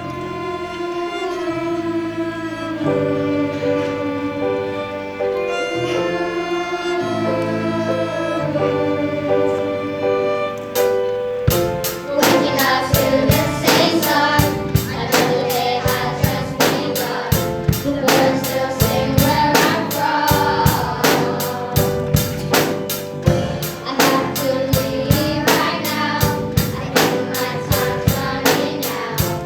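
A choir of children singing a song over a backing track. Held keyboard-like chords play at first, and a steady drum beat comes in about eleven seconds in.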